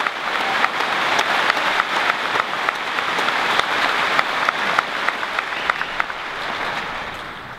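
Large crowd applauding, with sharper single claps standing out about twice a second; the applause dies away near the end.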